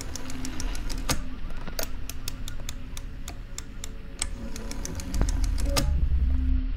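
A quick, irregular run of sharp mechanical clicks and taps over a low rumble, stopping about six seconds in.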